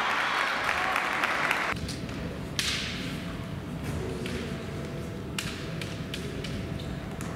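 Spectators clapping for a point just scored in a kendo bout, stopping abruptly about two seconds in. After that, a few separate thuds and taps on the gym floor over a faint steady hum.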